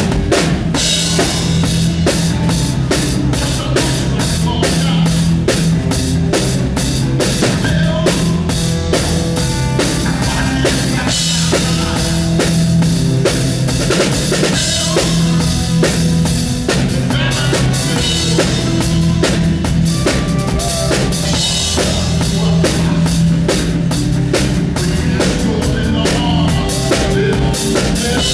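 Full drum kit played with a band: kick, snare and cymbals keep a steady groove over sustained bass and other pitched instrument notes.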